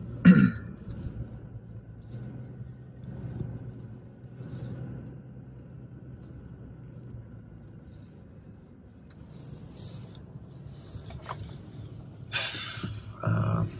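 Car cabin noise while driving slowly: a steady low drone of engine and road, with a brief loud sound just after the start and a few short louder sounds near the end.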